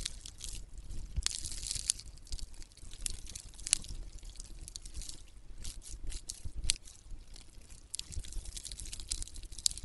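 Close-miked handling sounds of metal tweezers and fingertips pressing a false eyelash strip onto a mannequin head's eye: irregular soft crackles and sharp little clicks, several of them louder than the rest.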